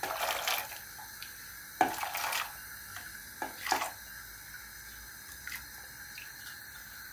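Boiled chickpeas tipped from a stainless-steel saucepan, splashing into a pot of hot water in three short bursts, the first right at the start, then around two seconds in and again about a second and a half later.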